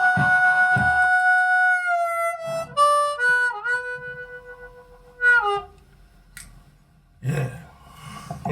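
Harmonica playing a held minor chord over a rhythmic knocking pulse, about one knock every 0.6 s. About a second in, the pulse stops and the chord fades. A few single notes follow, bent down in pitch at their ends, and the playing stops about five and a half seconds in. Quieter short noises follow.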